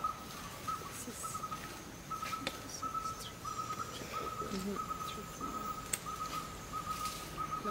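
Rhythmic chirping of forest wildlife: short notes at one steady high pitch, repeating about three times a second.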